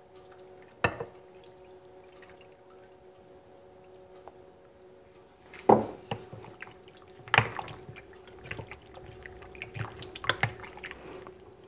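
Soy sauce poured faintly over raw pork pieces in a glass bowl, with a single knock about a second in. From about halfway on, the meat is stirred through the marinade: irregular wet squelches and clicks of a spatula against the glass bowl, over a faint steady hum.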